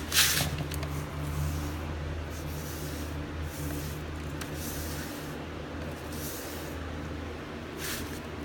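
Paintbrush laying primer on wood: soft swishing strokes every second or two, the strongest just after the start, over a steady low hum.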